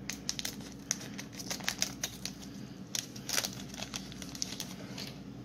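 Scissors cutting open a foil trading-card booster pack while the wrapper crinkles in the hands: a run of irregular sharp clicks and crackles.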